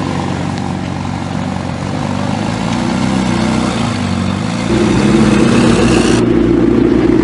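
Ferrari 458 Italia's V8 idling steadily. After an abrupt cut about four and a half seconds in, a McLaren 12C's twin-turbo V8 runs at low speed, louder.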